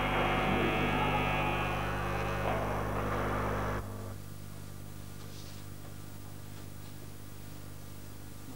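Live concert recording with a steady mains hum under muffled, indistinct hall sound, which cuts off abruptly about four seconds in, leaving only faint tape hiss and a low hum.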